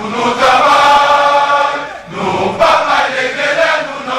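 Voices chanting in chorus in two long held phrases, with a short break about two seconds in.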